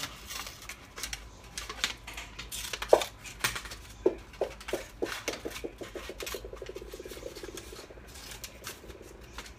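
Hand scissors snipping through paper: a run of short sharp snips with paper rustling, the loudest about three seconds in. From about four seconds in, a low rapid rattling buzz joins, speeding up and then fading.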